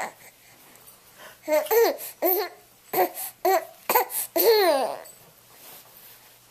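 A baby laughing while being tickled: a run of short, high-pitched squealing giggles from about a second and a half in, ending in a longer squeal just before five seconds.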